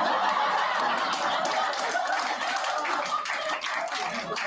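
Live audience laughing and clapping after a joke, a dense wash of laughter and hand claps that slowly eases off.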